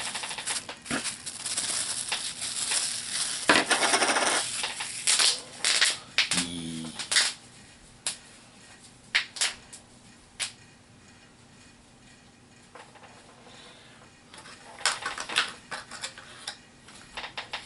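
Plastic packaging crinkling and rustling for the first few seconds, then scattered light clicks and taps of small plastic HeroClix miniatures and pieces being handled and set down on a table.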